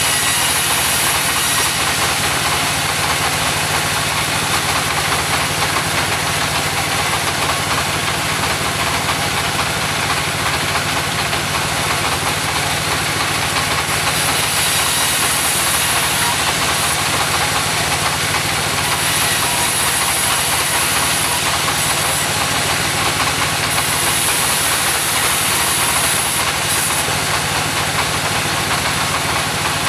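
Portable sawmill's engine running steadily through a long stretch of cutting. A high hiss comes and goes several times over it.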